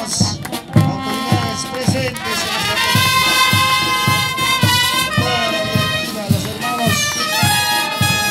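Military band playing a march: trumpets and other brass over a bass drum beating about twice a second.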